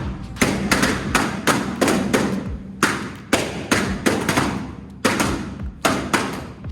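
Party balloons bursting one after another in rapid, irregular succession, about two or three pops a second.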